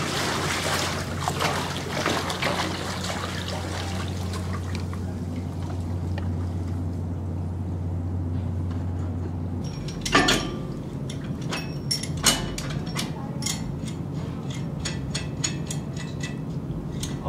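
Water trickling and dripping under a steady low hum that stops about ten seconds in, followed by a series of sharp clicks and taps.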